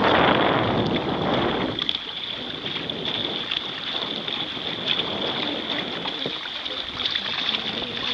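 Wind buffeting the microphone and water rushing and splashing along the bow of a Hobie Tandem Island sailing kayak under sail. The noise is louder for the first two seconds.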